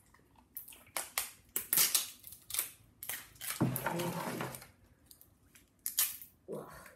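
Small plastic toy wrappers crinkling and crackling as they are handled and torn open, in irregular runs of short, sharp crackles.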